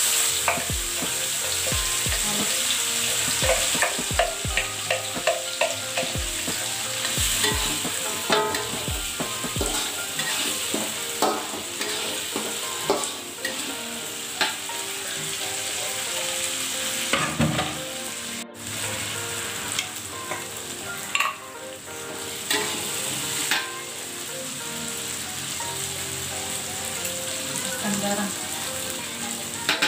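Chili sambal paste sizzling in hot oil in a metal wok, just added to the fragrant fried shallots, with a metal spatula scraping and tapping the wok as it is stirred. The taps are frequent for about the first ten seconds, then come more sparsely over the steady sizzle.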